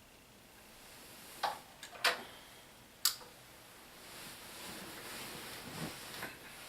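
Sharp taps or knocks on a hard surface: three distinct ones, about one and a half, two and three seconds in, with a fainter tap just before the second. After them comes a soft, steady hiss.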